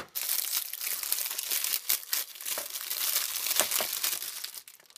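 Packing material crinkling and rustling as it is handled and pulled open, with many small clicks; it dies away near the end.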